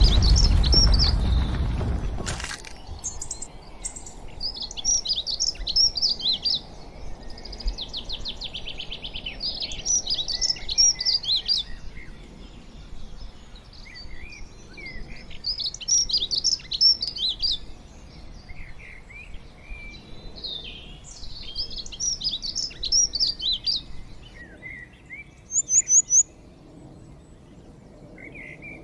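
A songbird singing in short, high warbled phrases that repeat every few seconds, with a fast trill partway through and four quick high notes near the end. A deep rumble opens the sound and fades over the first two seconds.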